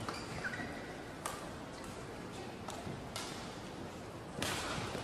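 Indoor badminton hall background noise between rallies, with scattered light knocks and clicks and a brief louder rush of noise near the end.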